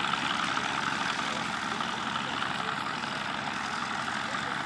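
Massey Ferguson 1200 tractor's diesel engine running steadily while ploughing, with an even, fast firing beat.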